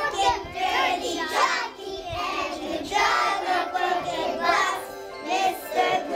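A group of young children singing with backing music.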